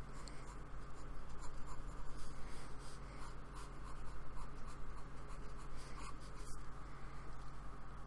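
Paintbrush scratching and dabbing acrylic paint onto a black card sketchbook page in short, irregular strokes, over a steady low hum.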